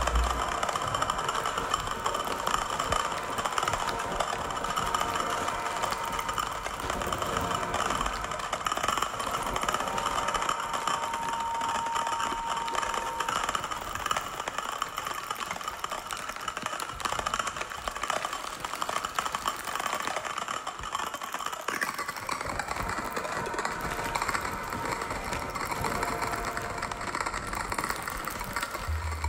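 Contemporary percussion and live electronics piece: a dense, steady crackling and rustling noise texture, with a thin held tone for a few seconds near the middle.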